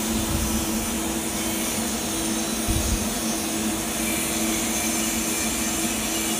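Steady hum and hiss of a pipe-welding shop while a TIG arc burns on a 3-inch carbon steel pipe root pass: a constant machine drone with two steady hum tones, and one brief low bump about three seconds in.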